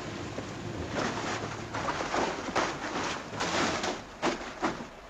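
Irregular scuffing and smothering noises as a small indoor fire is hurriedly put out.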